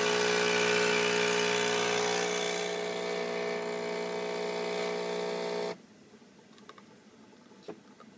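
A De'Longhi Nespresso Lattissima Plus's pump buzzing steadily as it brews an espresso shot. The buzz eases a little about two and a half seconds in and cuts off suddenly near six seconds, when the shot ends. A couple of faint ticks follow.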